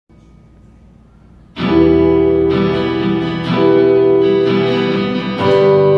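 Faint hum, then about a second and a half in a live band's instrumental intro begins: guitar chords with a new chord struck roughly once a second and left ringing.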